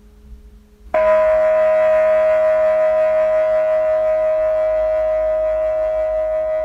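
A metal bell, struck once about a second in, ringing on with a strong steady tone and a stack of overtones, slowly fading with a slight wavering in loudness.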